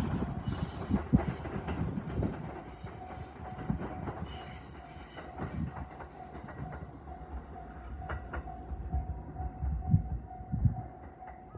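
E259 series electric limited-express train pulling out, its wheels clacking over the rail joints as the carriages roll by and the sound fades away. A faint steady tone sounds from about three seconds in.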